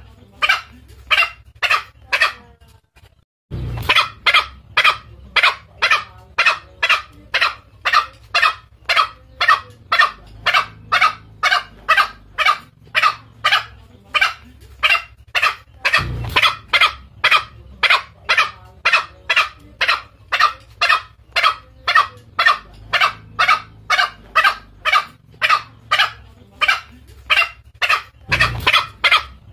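Recorded green junglefowl calls used as a hunting lure to draw in males: a fast series of short, sharp calls, about two or three a second. They break off for about a second near the start, and a low thump marks where the recording loops, about every twelve seconds.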